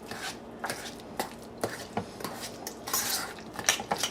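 A thick mayonnaise and blue cheese mixture being stirred by hand: a utensil scraping and clinking against the bowl in a string of irregular strokes.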